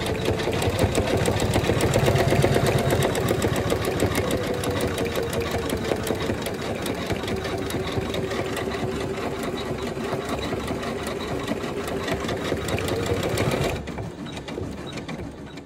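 Janome 500E embroidery machine stitching out a flower design, its needle running in a fast, even rhythm of rapid strokes. The sound drops to a lower level near the end.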